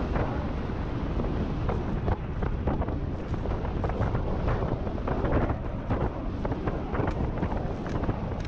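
Wind buffeting the microphone of a handlebar-mounted action camera on a moving electric scooter: a steady low rumble with frequent short crackling gusts.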